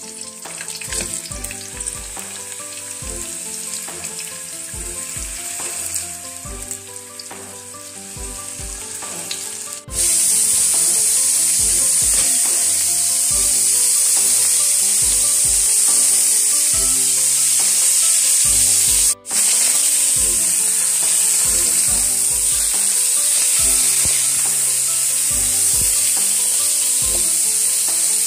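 Fish tail and a middle cut of fish, with slices of ginger, sizzling as they pan-fry in hot oil in a wok. The sizzle becomes much louder about ten seconds in and drops out for an instant a little before twenty seconds.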